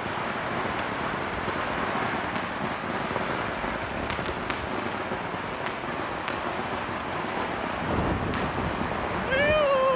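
Firecrackers and fireworks going off all around: a dense, continuous crackle with scattered sharp bangs throughout.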